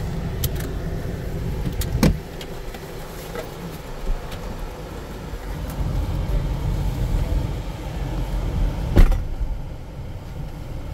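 Car on the move: a steady low rumble of engine and road noise, with two sharp knocks, about two seconds in and again near the end.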